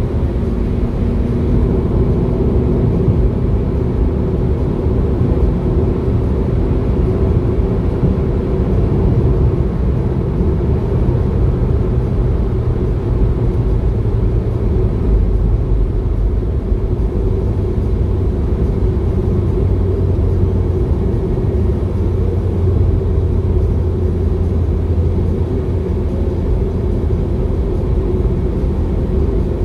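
Steady rumble of a vehicle driving along, road and engine noise without a break.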